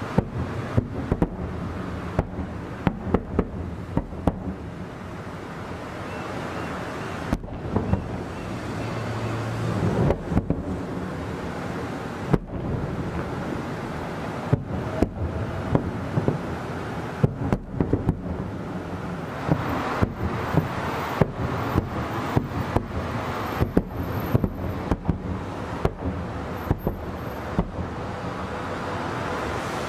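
Aerial fireworks shells bursting at a distance: an irregular, rapid run of sharp bangs, some close together in clusters, over a steady background noise.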